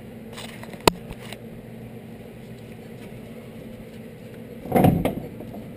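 Metal handling noises from fitting a CV axle by hand: a sharp click about a second in, then a louder clunk and scrape near the end as the inner joint's splined end is worked against the transmission opening. A steady hum runs underneath.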